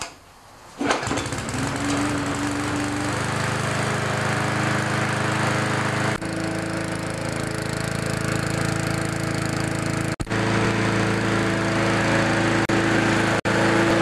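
Briggs & Stratton 3.5 lawnmower engine with a Pulsa Prime carburetor catching about a second in and then running steadily. It starts and runs after the carburetor has been cleaned and rebuilt.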